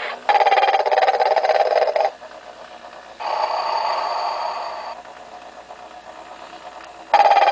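Recorded snoring from a 1994 Telco Motionette animated Mrs. Santa Claus figure. A loud rattling snore is followed by a softer breathy exhale with a thin whistle, and the rattling snore starts again near the end.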